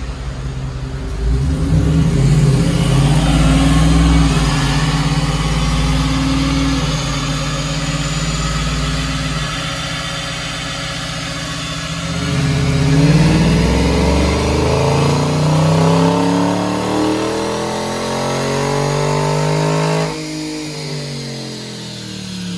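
Dodge Charger Scat Pack's 392 (6.4-litre) HEMI V8 making a full-throttle pull on a chassis dyno, its engine note climbing in pitch. It eases about ten seconds in, then climbs again and cuts off suddenly about twenty seconds in, the revs falling away as the engine and rollers wind down.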